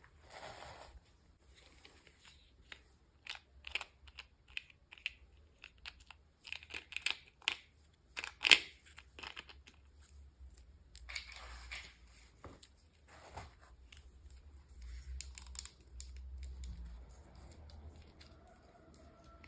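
Packaging being torn open and crinkled by hand, with many scattered small clicks and taps and one louder crack about halfway through.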